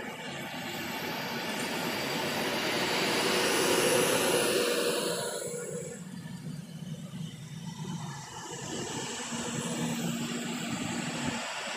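Passenger train running past along the platform: a steady rush of wheels on rails and passing coaches. It swells to a peak about four seconds in, eases off, then builds again near the end.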